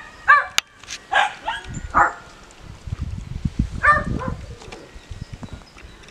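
Young dog giving short high-pitched yipping barks: about four in quick succession in the first two seconds, then another near four seconds in.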